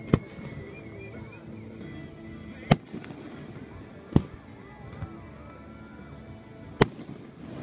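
Aerial firework shells bursting: four sharp booms, spaced about one and a half to two and a half seconds apart, with a smaller pop between the third and fourth.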